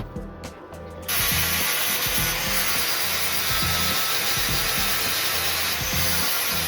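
A power tool working metal, a loud steady grinding noise that starts about a second in.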